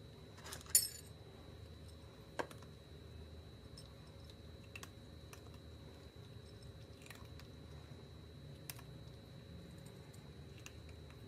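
A cat crunching dry kibble off a plate: faint, scattered crunches and small clicks a second or two apart, the loudest cluster about a second in.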